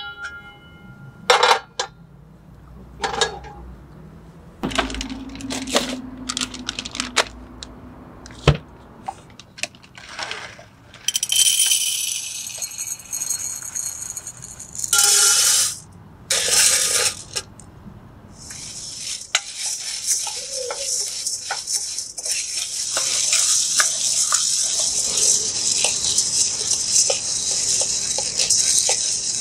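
Green coffee beans being roasted in a wok on a portable gas stove. There are a few knocks and clinks as the wok is set on the burner, then rattling bursts as the raw beans are poured in. From about two-thirds of the way in comes a steady, grainy rustle of the beans being stirred around the hot wok with a wooden spoon.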